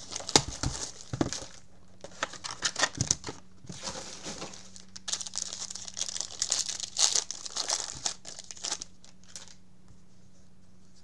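Hands crinkling and tearing open the plastic wrapping of a 2019 Topps Tier One baseball card box and pack, a busy run of crackles and rips that dies away about nine seconds in, leaving a faint steady hum.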